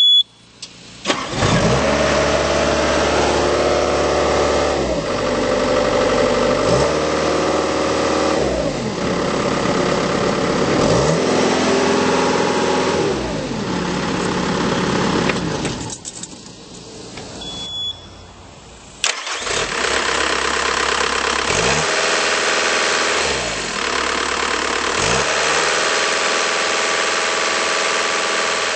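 A 2008 Bobcat T190 tracked skid steer loader's diesel engine starts after a short warning beep. Its speed rises and falls over and over. Near the middle it drops away, another beep sounds, and it starts again and goes on rising and falling.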